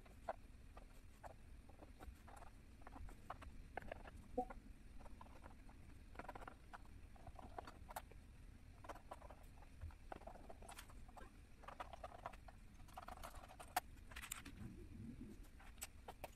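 Faint clicks, taps and short scrapes of a plastic wireless keyboard case being handled while its screws are undone with a small screwdriver and the battery cover is taken off.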